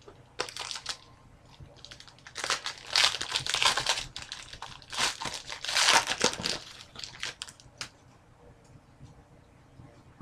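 Crinkling packaging as trading cards are handled, in several bursts with the longest in the middle, followed by a few light clicks near the end.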